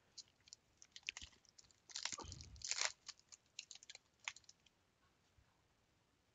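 Trading cards and plastic packaging handled with gloved hands: light clicks and crinkly rustles, the loudest rustle about two seconds in, dying away to near silence after about four and a half seconds.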